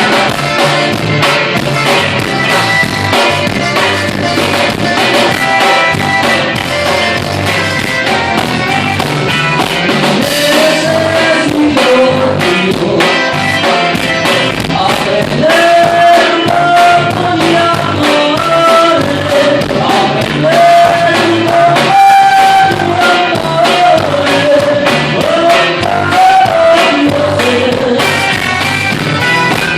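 Recorded band music with a steady drum beat and guitar, and a sung melody carried over it.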